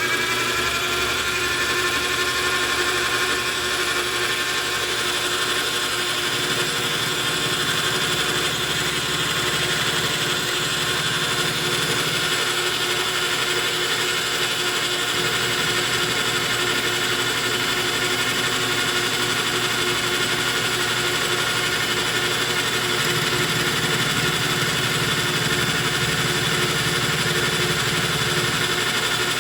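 Lathe running at speed with a steady motor whine, settling out of its spin-up in the first second, during a face-milling pass about ten thousandths of an inch deep on a copper bolt.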